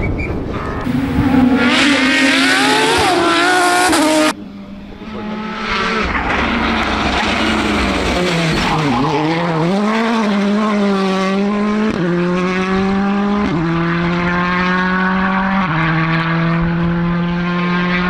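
Rally car engines at full throttle on a gravel stage. One car revs hard until a sudden cut about four seconds in; a second car then comes off the throttle, its engine note dropping deeply about halfway through for a corner, and accelerates away, shifting up through the gears three times near the end.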